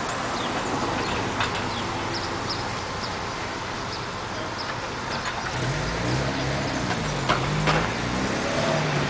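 Steady outdoor background noise, then from about halfway a motor vehicle engine running with its revs rising and falling. A few sharp clicks, most of them near the end.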